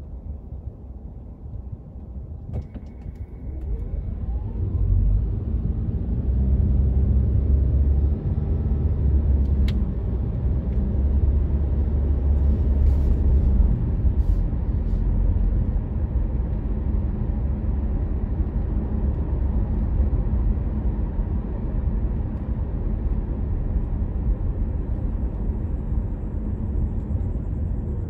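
A car driving, with a steady low rumble of engine and road noise that grows louder about four seconds in.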